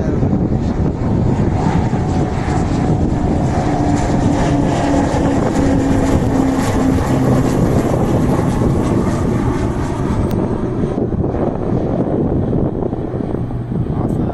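A pair of Beechcraft T-6 Texan II turboprop trainers passing overhead. The propeller and engine drone is steady, with a tone that drops in pitch as they go by, and it eases off in the last few seconds.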